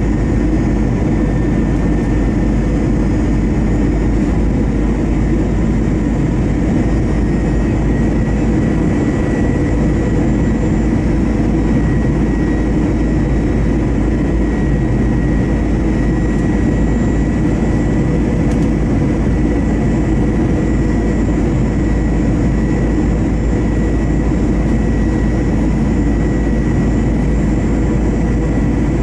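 Cabin noise of an Airbus A321's CFM56-5B turbofan engines and the airflow during descent on approach: a steady rush with faint steady whining tones from the engines.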